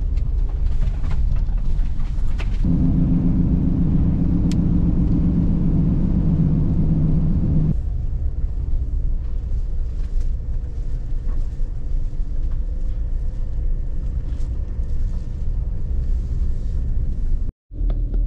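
Ram ProMaster van driving, heard from inside the cab: a steady low rumble of engine and road noise, with a stronger, even engine hum from about three to eight seconds in. The sound cuts out for a moment near the end.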